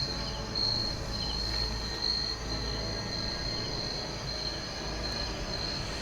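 Crickets chirping in a steady night chorus: a continuous high trill, with a few short separate chirps now and then, over a low steady rumble.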